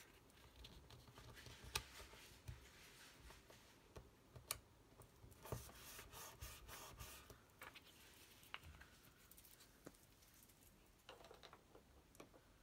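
Very faint paper handling: layered card pieces being glued with a glue stick and rubbed and pressed flat by hand, with a few scattered light ticks.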